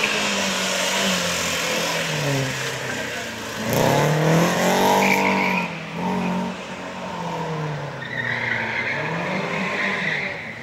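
Ford Fiesta XR2i rally car's four-cylinder engine revving up and down through gear changes, loudest about four seconds in. Tyres squeal briefly at about five seconds and again for a couple of seconds near the end.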